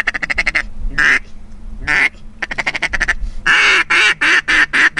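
Duck call blown by mouth, mixing quick feeder chatter with quacks. A fast run of short ticking notes is followed by two single quacks. A second fast run follows, then a series of loud, drawn-out quacks near the end in the manner of a comeback call.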